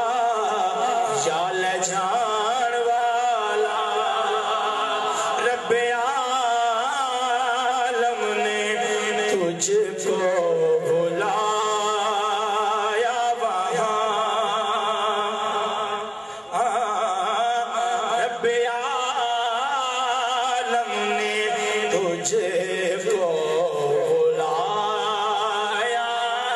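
Solo male voice reciting a naat, a devotional Urdu poem in praise of the Prophet, sung in long, wavering melodic lines into a microphone. There is a short pause a little past halfway.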